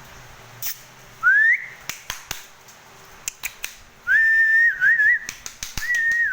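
A person whistling three times: a short rising whistle, then a long held one with small warbles, then another that drops off at the end. The whistles are a call to the dogs to stop. Scattered sharp clicks run between them.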